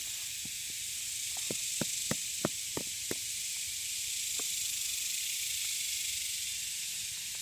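Metal hammer-head tool tapping and chipping limestone to free a pyrite nodule: a run of sharp, separate taps through the first three seconds or so, and one more a little later. A steady high hiss runs behind it.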